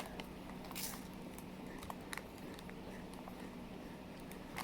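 Quiet room tone with a low steady hum and a few faint, soft clicks.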